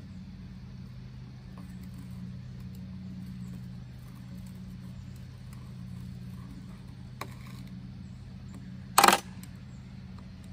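A faint click, then about nine seconds in a short, sharp metallic clink of small metal parts, as the sprocket cover of a DeWalt pole saw is fitted and its hex screws are set. A steady low hum runs underneath.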